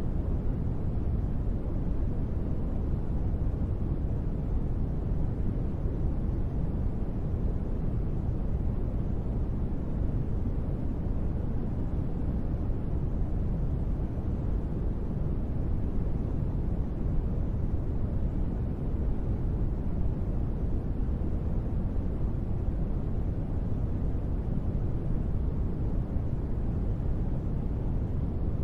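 Steady noise played as a sleep aid, deep in tone with little hiss, and with no changes or breaks.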